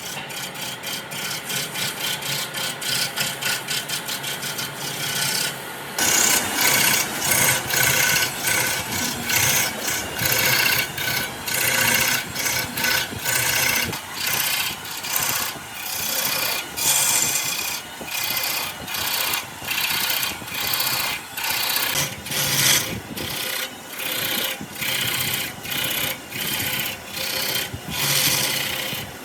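A hand tool worked back and forth over wood, each stroke a rasping scrape. Short quick strokes, about five a second, change about six seconds in to longer strokes, a little over one a second.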